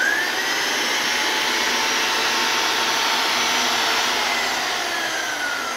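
A large electric drill running at speed, turning the input shaft of an 18-speed Eaton Fuller Road Ranger truck gearbox so its constant-mesh gears spin. The motor's whine rises as it starts and falls a little near the end as it slows.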